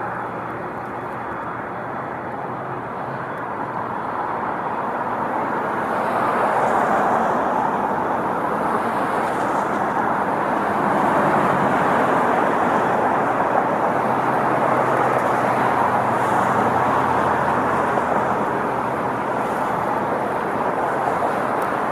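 Boeing 777 jet engines, a broad steady rush of noise that swells over the first six seconds and stays loud.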